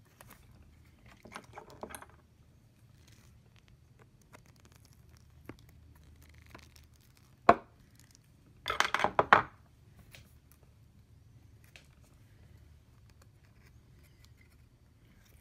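Small tools and electronic parts handled on a workbench: scattered light ticks, one sharp click about seven seconds in, then a quick rattle of clicks a moment later, over a faint steady low hum.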